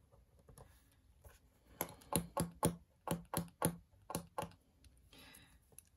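A quick, uneven run of about ten sharp clicks, followed near the end by a faint rustle.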